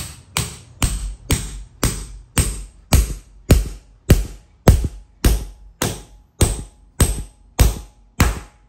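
Hammer striking the head of a steel sacrificial bolt, driving a drop-in concrete anchor down into its drilled hole in the slab. The sharp metal-on-metal blows come evenly, about two a second.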